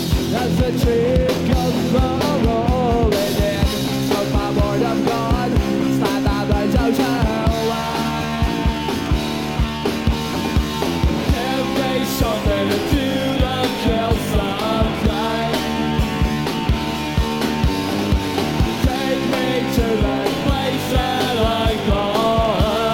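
Punk rock band playing live: electric guitars and bass over a steadily hit drum kit.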